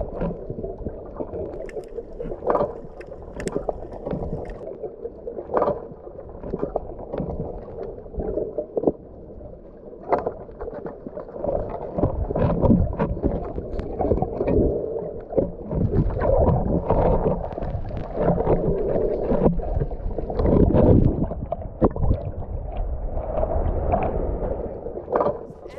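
Water splashing and gurgling with many irregular sharp clicks and knocks, most of the sound low and muffled, growing louder and heavier in the middle part.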